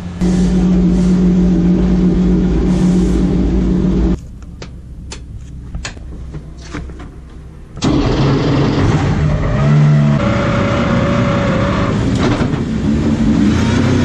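BMW M6 GT3's twin-turbo V8 running loud and steady, heard from inside the cockpit. About four seconds in it gives way to a quieter stretch with a few sharp clicks. It comes back at full level about eight seconds in, its pitch shifting as it is revved.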